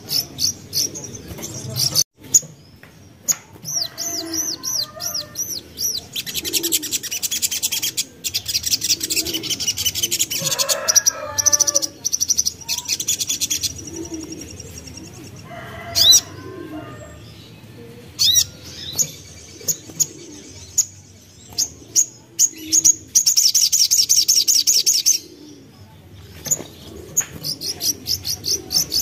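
Little spiderhunter (sogok ontong) singing: strings of sharp high chirps broken by two long, very fast dense trills, one about seven seconds in and one near the end.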